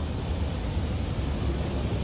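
Wind buffeting the phone's microphone: a steady low rumble with an even hiss over it.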